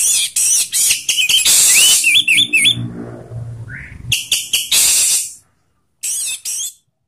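Orange-headed thrush singing loudly in full song: harsh, rasping phrases mixed with quick whistled up-and-down notes. The song breaks off about five and a half seconds in, then comes back for one last short burst.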